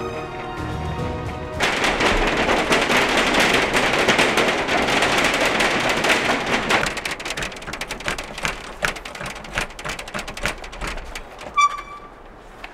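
Many fists banging on a shopfront's glass windows and door in a dense, continuous clatter that thins to scattered knocks about halfway through. Near the end a short ringing tone sounds.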